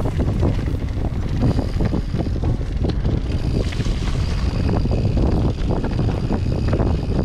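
Wind buffeting the microphone over the rumble and rattle of an Orbea Oiz full-suspension mountain bike descending loose, rocky singletrack, with many small knocks from tyres and frame over stones. A faint steady high tone joins about a second and a half in.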